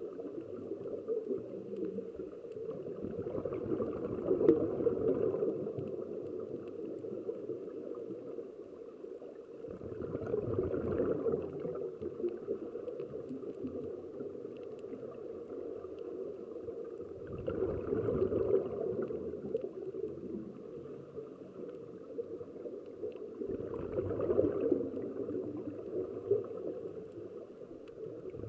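Scuba regulators' exhaled air bubbling and gurgling, heard underwater, swelling in four bursts about six to seven seconds apart with the divers' breaths, over a steady muffled underwater hiss.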